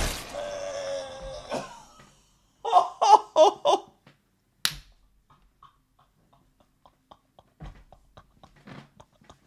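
A loud sting fading out over the first two seconds, then a short laugh in four quick pulses, one sharp click about a second later, and faint scattered clicks.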